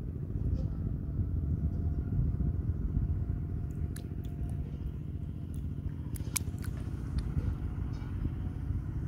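Wind rumbling on the microphone, with a few light clicks between about four and seven seconds in.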